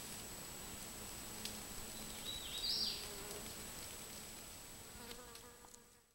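Forest ambience: steady insect buzzing with a thin, high, continuous tone and faint ticks. A brief chirp about two and a half seconds in is the loudest moment, and the sound fades out near the end.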